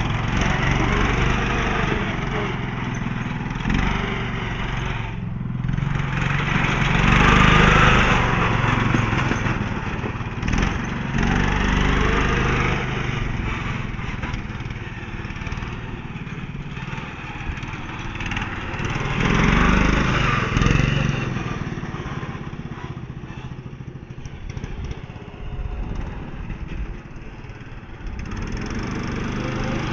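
Riding lawnmower's small engine running steadily, swelling louder twice and easing off again.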